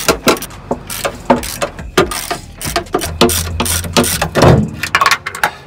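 Socket ratchet clicking in quick uneven runs as it is swung back and forth, running off the 14 mm nuts on a rear strut's top mount, with a louder knock about four and a half seconds in.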